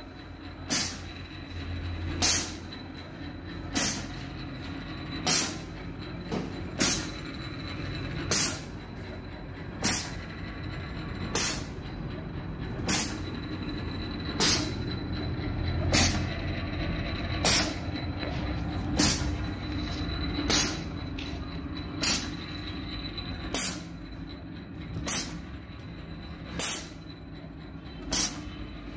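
Automatic broom-stick threading machine running its cycle: short sharp blasts of compressed air hissing out of its pneumatic valve about every second and a half, over the steady hum of its motor.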